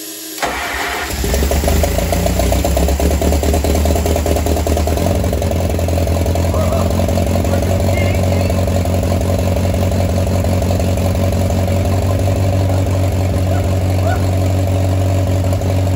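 Oliver 550 tractor's four-cylinder gasoline engine, on choke, catching within the first second of the starter cranking and then running steadily. This is the first start of a long-dormant engine after new plugs, points, condenser, rotor and cap.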